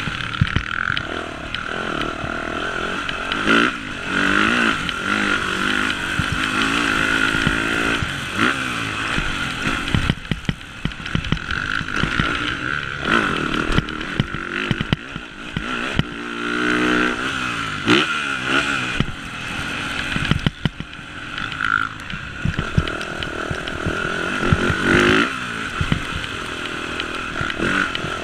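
Motocross bike engine revving hard and easing off again and again as it accelerates and slows through the track's sections, with frequent knocks and clatter from the bike over rough, rutted ground.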